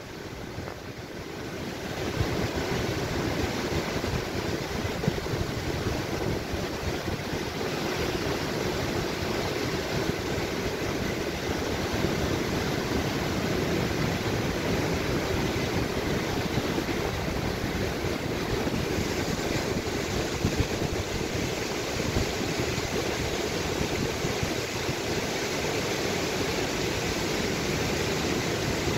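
Steady rushing of a mountain waterfall and its stream over rocks, with wind buffeting the microphone. It fades in over the first two seconds, then holds level.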